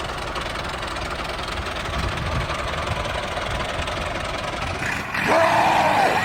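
The motor of a DIY mini combine harvester running steadily. It breaks off suddenly about five seconds in, and a voice follows.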